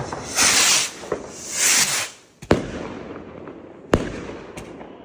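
Two 38 mm shell rockets launching with a loud hissing whoosh each, one after the other. They burst overhead with two sharp bangs about a second and a half apart, followed by a smaller crack and a fading crackle.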